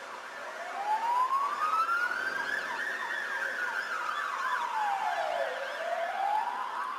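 Emergency vehicle sirens sounding together. One slow wail rises for about three seconds, falls for about two and a half, then starts rising again near the end, while a second siren warbles rapidly up and down throughout.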